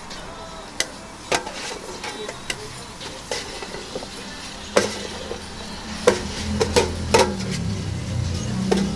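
Chopped onion pieces tipped from a metal pan onto a stainless steel griddle, with about ten sharp knocks and clatters of pieces and the pan's edge striking the steel, most of them in the second half. A low hum builds under them in the second half.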